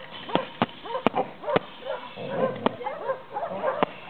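Young white shepherd dog, eight months old, giving rapid short yips and whines during bite work, in drive and excitement. About six sharp cracks come in among the calls.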